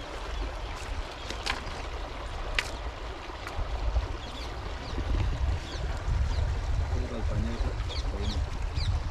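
Wind rumbling on the microphone, with a few sharp clicks in the first half and faint short bird chirps in the second half.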